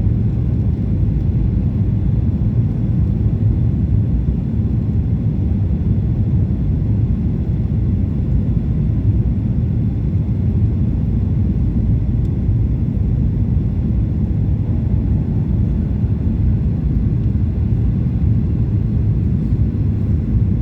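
Airliner cabin noise in flight: a steady low rumble of engines and airflow.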